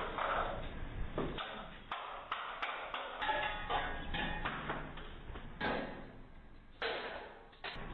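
Irregular knocks, taps and scraping against a Ring doorbell camera as someone works at it with tools, trying to break it.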